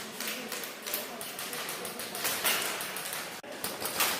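Airsoft guns firing single shots, an irregular clatter of sharp cracks, several close together and a few louder ones.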